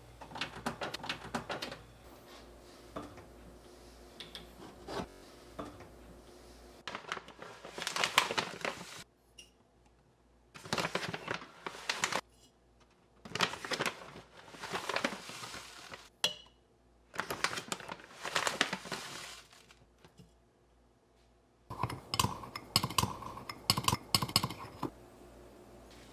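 Clinks and clatter of kitchen utensils and containers, coming in several bursts a few seconds apart with quiet gaps between.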